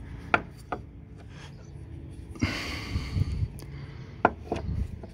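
Plastic roof rack cross bar mount being pressed and worked onto the roof rail: a few sharp clicks and knocks, two near the start and one about four seconds in, with a rubbing scrape about halfway through as the foot settles into place.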